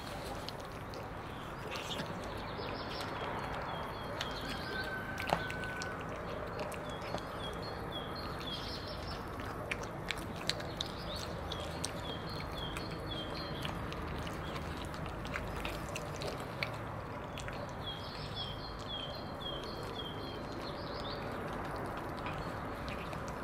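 Two cats chewing wet cat food, with scattered wet clicks and smacks as they eat. A small bird chirps in short runs of quick high notes several times in the background.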